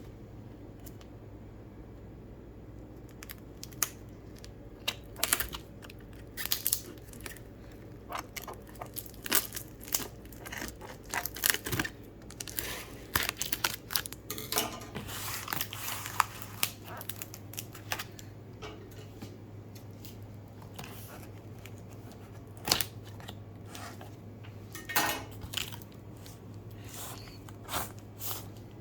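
Packaging being opened and handled: irregular tearing, crinkling and rustling with sharp clicks, starting about three seconds in and going on in fits and starts. A low steady hum lies underneath.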